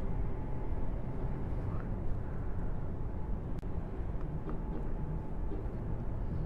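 Steady low background rumble, with a single faint click about three and a half seconds in.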